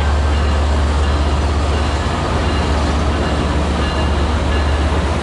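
Amtrak Pacific Surfliner passenger train rolling along the station track, a steady low rumble with the noise of its cars passing.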